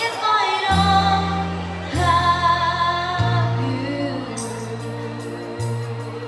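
A girl singing a song into a stage microphone over musical accompaniment with a steady bass line; light high ticking percussion joins about four seconds in.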